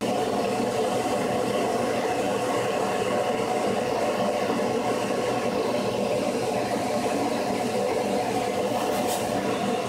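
Steady whir and hum of an electric motor running a shop machine, starting abruptly and cutting off near the end.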